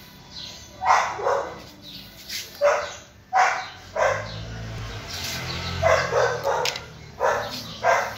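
A dog barking repeatedly, short barks often in close pairs, about eight in all.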